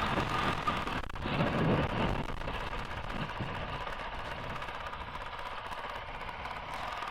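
Honda CRF450RL's single-cylinder four-stroke engine running at low cruising speed. It swells briefly about a second in, then settles to a steady run.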